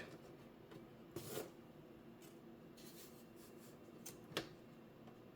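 Near silence: faint room tone with a few soft, short clicks and rustles, about a second in and again just after four seconds.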